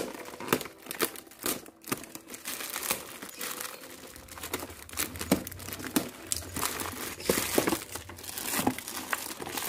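Black plastic courier mailer being slit with a box cutter and torn off a cardboard box, the plastic crinkling and tearing in a run of irregular rustles.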